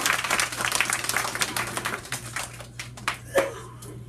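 Small audience applauding by hand, a dense patter of claps that thins out and dies away about three seconds in, ending in a few scattered last claps.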